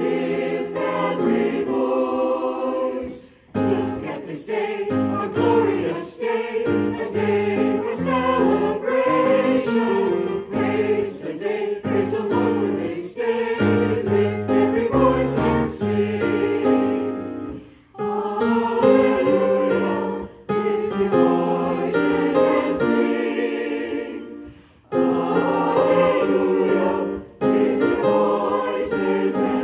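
Church choir of mixed men's and women's voices singing an anthem in parts with piano accompaniment, the phrases broken by short pauses for breath.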